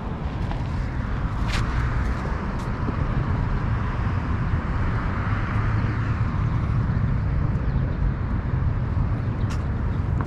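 Steady outdoor noise of a parking lot: wind rumbling on the microphone over traffic noise, with a few sharp clicks, two in the first few seconds and one near the end.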